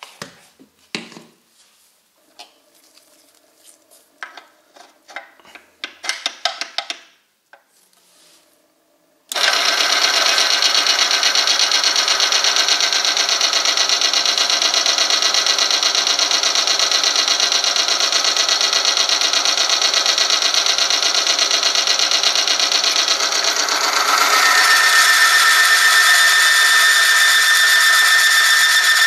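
Clicks and knocks of the oil-film strength tester being set up, then about nine seconds in its electric motor switches on and the rotating steel ring runs steadily against the oil-lubricated test sample with a loud whirring grind. About 24 seconds in it gets louder and a high squeal joins as heavier weights load the lever arm.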